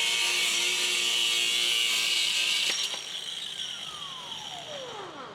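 Power cutting tool, such as an angle grinder with a cut-off disc, cutting through steel door track with a loud, high hissing whine. About two and a half seconds in the cut stops and the disc spins down, its whine falling steadily in pitch.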